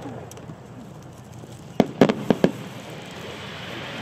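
Japanese star mine fireworks barrage: a quick run of four or five sharp shell bursts about two seconds in, over a low rumble of more distant reports, then a soft hiss of burning sparks near the end.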